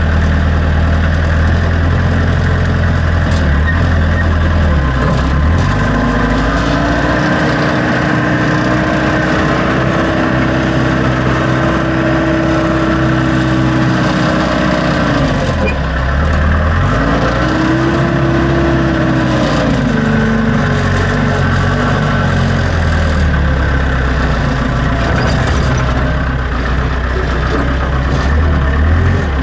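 Backhoe engine idling, then revved up about five seconds in and held high for about ten seconds. It drops back to idle briefly, revs up again for a few seconds, and settles back to idle.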